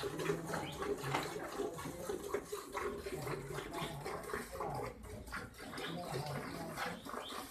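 Milk squirting into a metal pail as a cow is milked by hand from both sides at once, a rapid, uneven run of squirts.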